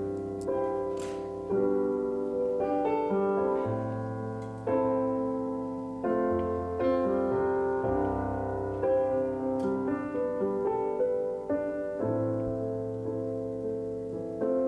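Piano playing alone: chords struck one after another, about one every second or so, each ringing and fading over held low bass notes.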